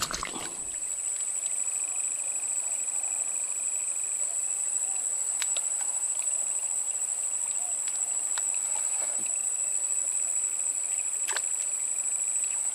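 Steady, shrill trilling of insects, with a second, lower insect buzz that drops out for a while and comes back. A few faint clicks.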